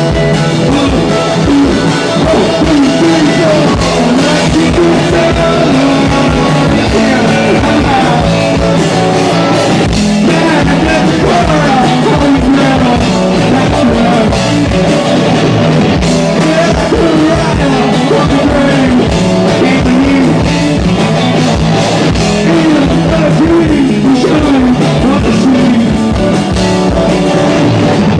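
Live rock band playing loudly: electric guitars, bass and drum kit, with a voice singing over the top.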